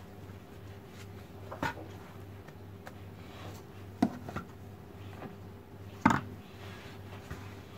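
Hands kneading a stiff fekkas dough in a large flour-dusted bowl, with a few sharp knocks of hands and a cup against the bowls, the loudest about six seconds in. A steady low hum runs underneath.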